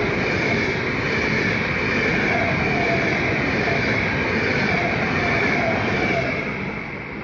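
Frecciabianca electric passenger train passing close at speed: a steady loud rush of wheels on rail and moving air, with a light whine that comes and goes twice, fading near the end as the last car goes by.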